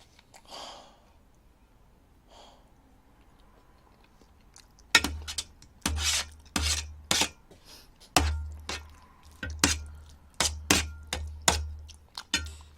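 A run of sharp knocks and clatters on a tabletop, like dishes or utensils being set down and tapped, about two a second. They start about five seconds in, after a few seconds of near quiet.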